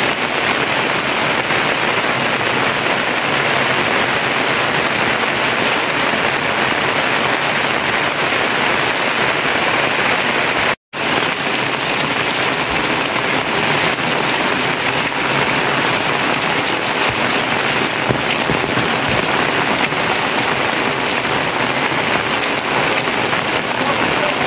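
Steady heavy rain falling on the ground, puddles and plants, a dense even hiss. The sound cuts out for an instant a little before halfway.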